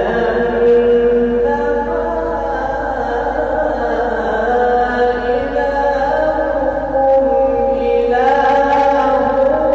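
A qari's solo voice reciting the Quran in melodic tajweed style, drawing out long held notes. The line climbs to a higher-pitched phrase about eight seconds in.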